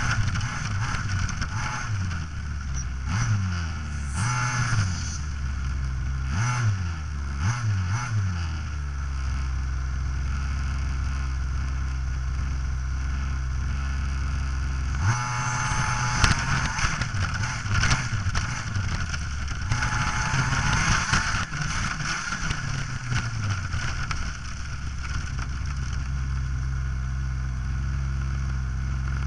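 Radio-controlled model vehicle driving through grass, picked up by its onboard camera. The motor and gears hum, their pitch rising and falling at first and then holding steady, and rattling and grass brushing come in about halfway through.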